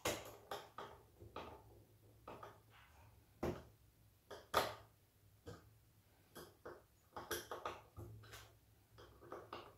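Irregular small clicks and taps of a hand screwdriver turning screws and knocking against a metal monitor bracket, as the bracket's screws are given their final tightening. Two louder knocks come about three and a half and four and a half seconds in.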